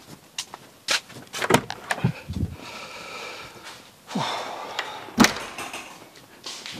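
A door being opened and then shut with a sharp thud about five seconds in, after a series of clicks and knocks from the handle and latch.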